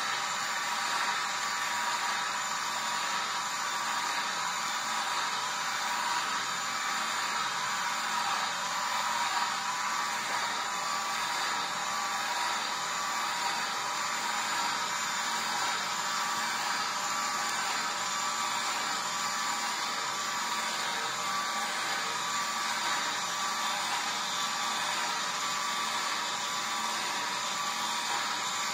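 Vertical slow juicer's motor running steadily, an even whirring hum as it presses pineapple.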